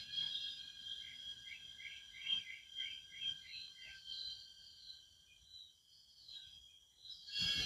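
Tropical forest ambience: a steady high-pitched insect drone made of several held tones, with a bird giving a quick series of short chirps, about three a second, in the first half. A louder rushing noise sets in near the end.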